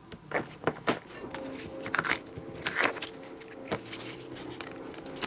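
Hands handling paper and packaging: a string of sharp clicks and rustles as the printed manual and other contents are picked up from beside the cardboard box. Faint background music comes in about a second in.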